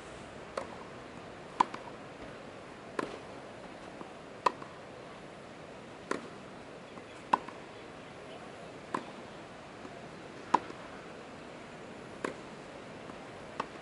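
Tennis rally: a tennis ball struck back and forth by rackets, a sharp pop about every one and a half seconds, with louder and fainter hits alternating, over a steady hiss.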